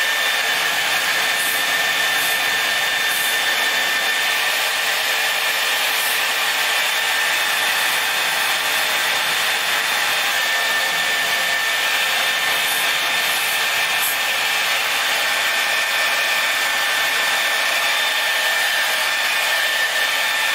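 Handheld blow dryer running steadily on its low, cool setting, with a constant whine over its airflow, drying lace-wig adhesive spray so that it turns tacky.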